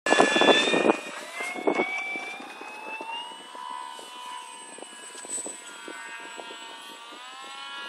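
Electric motor and propeller of a 1600 mm radio-controlled P-51 Mustang model taking off: loud at first, then a whine rising in pitch over about three seconds as it climbs away, holding steady and shifting in pitch again near the end as it flies past.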